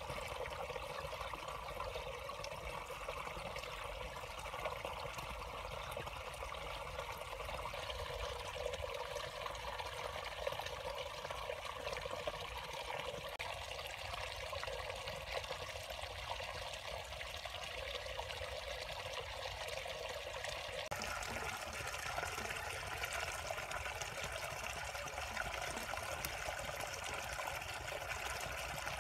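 Water trickling steadily, an even running-water sound with no distinct splashes; it turns slightly brighter about two-thirds of the way through.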